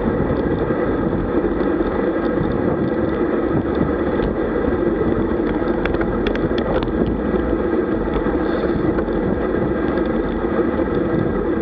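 Steady rush of wind over a camera microphone together with road bike tyres running on asphalt at speed, a constant even roar with a few faint clicks about six to seven seconds in.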